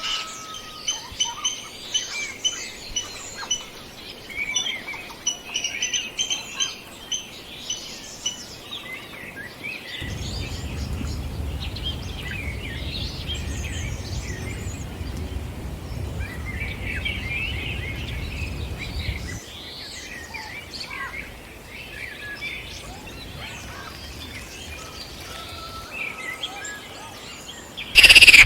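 Outdoor ambience of many short chirping bird calls. A low rumble runs through the middle stretch, and a sudden loud sound comes in right at the end.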